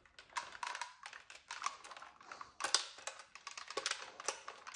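Handling noise from a Tokyo Marui AK47S airsoft rifle being turned over in the hands: irregular light clicks, taps and rubbing of its plastic, metal and wooden parts.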